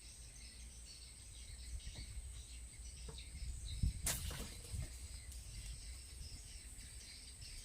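Insects droning steadily at a high pitch, with a sharp knock about four seconds in.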